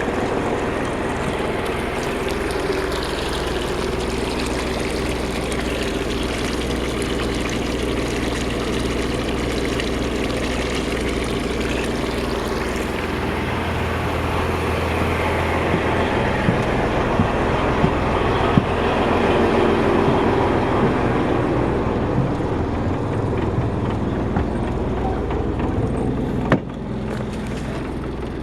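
Boat's Yanmar 6KY-ET marine diesel engine running steadily under a wide rushing noise. Near the end there is a sharp click, and the sound drops slightly quieter.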